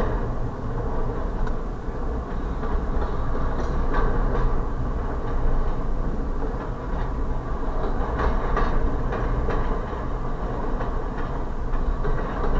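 Double-stack intermodal freight cars rolling steadily past: a continuous low rumble of steel wheels on rail with irregular clicks and clunks as the wheels cross rail joints, heard from inside a car.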